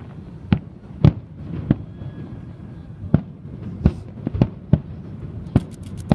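Aerial fireworks bursting: a run of about ten sharp booms at uneven intervals, some close together, over a steady background noise.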